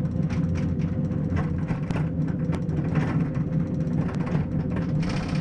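Steady low rumble and hum inside a cable-car gondola cabin as it rides down the cable, with scattered light clicks and rattles.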